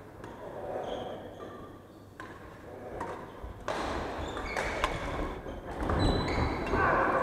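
Badminton rally in an echoing hall: a few sharp racket strikes on the shuttlecock and short squeaks of court shoes on the wooden floor, louder and busier in the second half.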